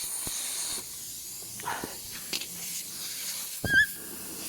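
Air hissing faintly and steadily from a nail puncture in a Yamaha NMAX scooter tyre that is losing air. A couple of brief handling sounds, and a short, loud, high warbling chirp near the end.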